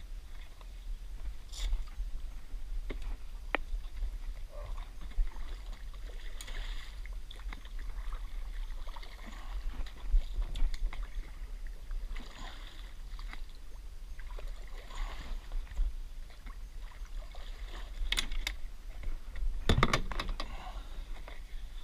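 Water lapping and splashing against a kayak hull, with a steady low wind rumble on the microphone. Near the end come a few sharp clicks and a knock as the fishing rod, reel and deck gear are handled.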